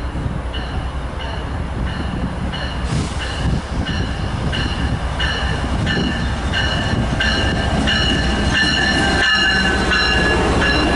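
MBTA diesel commuter train approaching and running past the platform: a low rumble building as it nears, with a bell ringing a little under twice a second that grows louder as the train closes in.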